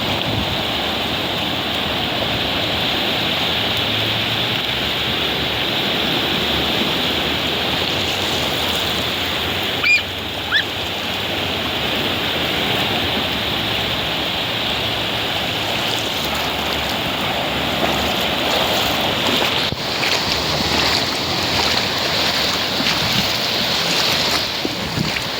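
Sea waves washing on the shore, a steady rushing with wind buffeting the microphone. About ten seconds in there is a brief high rising cry.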